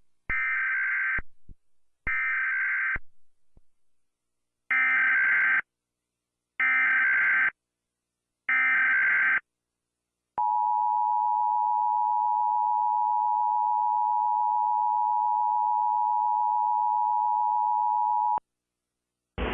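Emergency Alert System national test tones. First come five harsh electronic data bursts of about a second each: the first two have short trailing tails, and the last three are clean and about a second apart (the SAME header). Then the EAS two-tone attention signal holds steady for about eight seconds.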